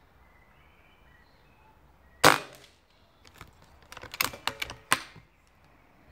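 Webley Mastiff .22 pre-charged pneumatic air rifle firing a single shot, a sharp crack about two seconds in. It is followed by a quick run of clicks as the rifle's action is worked to load the next pellet.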